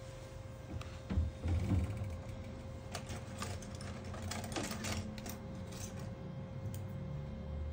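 Small clicks and taps from handling a phone's loosened back glass panel and setting it down on a work mat, with a few low knocks about a second in and a burst of clicks near the middle. A steady faint hum runs underneath.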